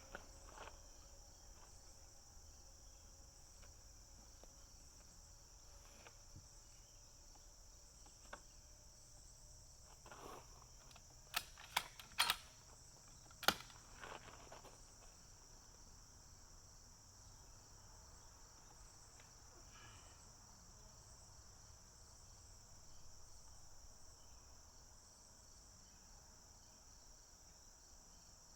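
Steady high-pitched chirring of insects, likely crickets. A handful of sharp clicks come close together about halfway through.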